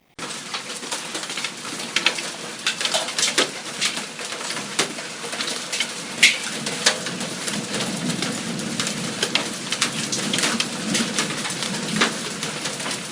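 Hailstorm with heavy rain: a steady hiss of falling rain, with many sharp, irregular ticks and clicks as hailstones strike.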